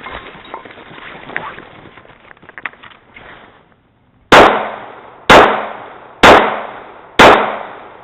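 Four handgun shots about a second apart, starting a little past halfway, each ringing out in a short echo.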